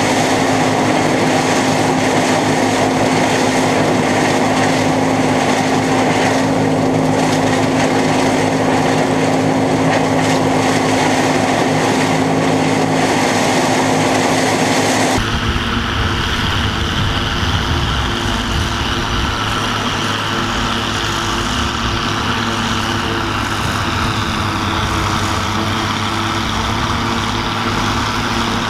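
Allis-Chalmers 190XT tractor pulling a Gehl 750 forage harvester chopping corn, heard close up from the harvester: the engine runs under load under the steady whine and rush of the harvester. About halfway through the sound changes abruptly to the tractor's lower, steady engine note heard from farther off.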